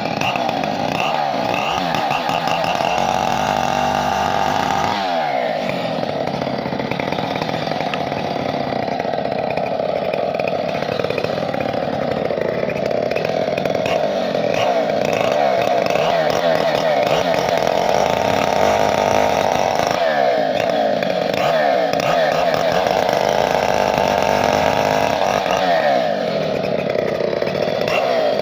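Chainsaw engine running steadily at high speed, its pitch sagging briefly a few times.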